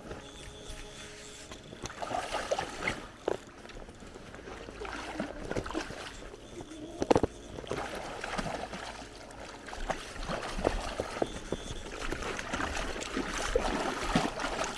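Stream water sloshing and gurgling, with irregular knocks and small splashes scattered through it, the loudest cluster about halfway through; the water noise grows louder near the end.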